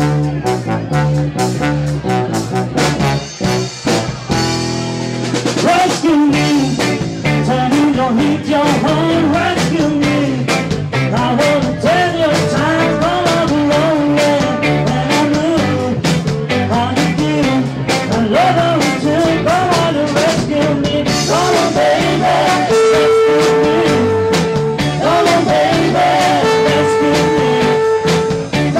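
Live band playing a sixties-style number with electric guitar, trombone, drums and a lead singer. Near the end, long held notes ring over the band.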